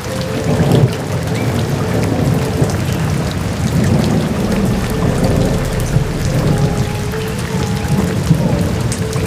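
Heavy rain falling steadily, with low thunder rumbling throughout, and faint music with held notes underneath.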